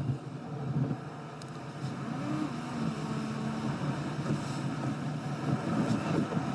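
Car travelling on the road, heard from inside the cabin: steady engine and tyre noise. A short hum rises, then drops and holds level for about a second, a few seconds in.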